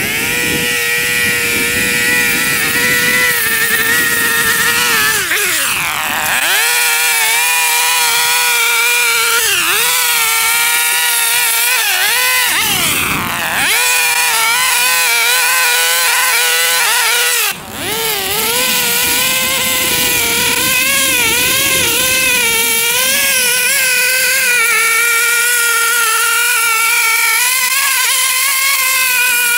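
Lawn mower engine running loud and steady, its pitch sagging and recovering several times as it labours under the load of very tall grass.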